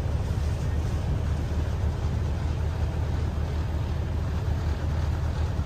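River boat's engine running steadily, a constant low rumble with the rush of water and air under it.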